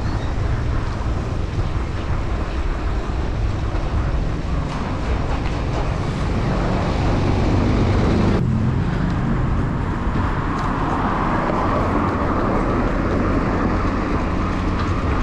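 Steady road-traffic noise with motor vehicles running close by. The sound changes abruptly a little past eight seconds in.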